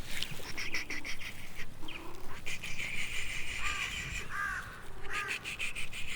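Three short rising-and-falling animal calls about 0.7 s apart, over a steady high-pitched chattering of wildlife in the background.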